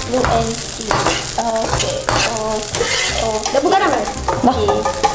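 Food sizzling in hot oil in frying pans while spatulas stir and scrape it: egg being cooked in a non-stick pan with a wooden spatula, with fried rice being turned in a second pan. A steady hiss of sizzling runs under the stirring.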